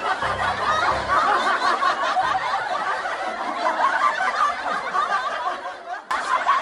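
Laugh-track sound effect of many overlapping laughs. It dips and cuts out briefly about six seconds in, then starts again.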